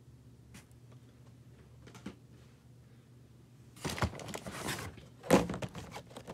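Boxed action figures in cardboard-and-plastic blister packaging being shuffled inside a cardboard shipping box: a few light clicks, then about a second of rustling and scraping, and a sharp thunk a little after five seconds in as a package knocks against the box.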